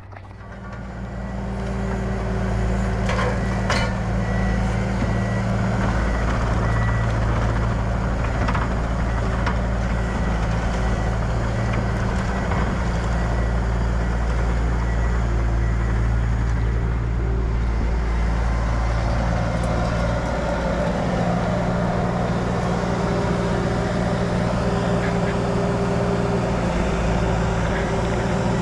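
Bobcat T300 skid steer's diesel engine running steadily as it loads a log, building up over the first couple of seconds. There are a few sharp clanks about three to four seconds in.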